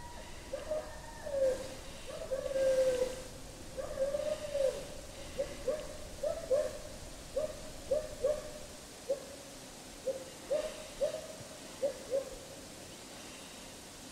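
A series of short hoots, many coming in pairs, with a few longer drawn-out notes in the first few seconds; they stop about two seconds before the end.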